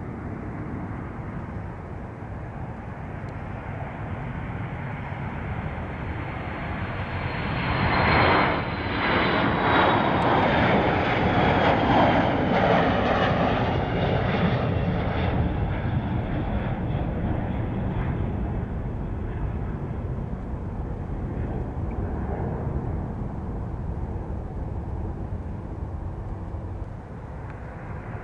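Boeing TC-135W's four CFM56 (F108) turbofans at takeoff power as the jet rolls and climbs out past, getting louder to a peak about eight seconds in, with a high whine that falls in pitch as it goes by, then slowly fading.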